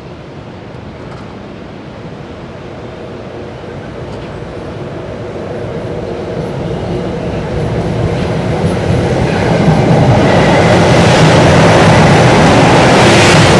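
Metro-North commuter train approaching on the rails, growing steadily louder for about ten seconds, then staying loud as it reaches the station.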